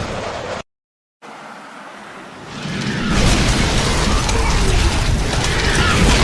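Strong gusting wind with a deep rumble of wind buffeting the microphone. It cuts off abruptly under a second in, and after half a second of dead silence a new stretch of wind starts moderately and swells into a loud gust about two and a half seconds in.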